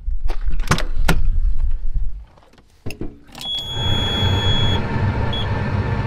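Semi truck cab: several sharp latch and door clicks, then after a short quiet pause a key click, a steady high warning buzzer lasting about a second and a half, and the diesel engine starting and settling into a steady idle.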